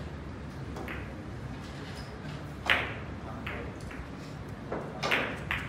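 Carom billiard shot: the cue tip striking the cue ball, then a series of sharp clicks of the three balls hitting each other, the loudest about two and a half seconds in and a quick cluster near the end.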